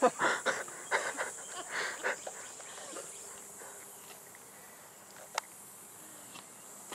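A steady high-pitched hiss with scattered voices during the first couple of seconds, then one sharp click about five and a half seconds in.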